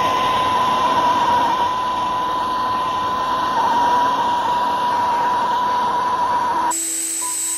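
Gas torch flame burning with a steady hiss and a high, steady whistle as it heats metal in a ceramic crucible. The sound cuts off abruptly near the end.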